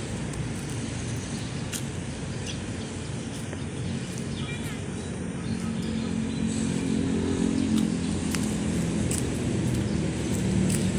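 A motor vehicle engine runs under a steady low rumble, and its hum grows louder about halfway through.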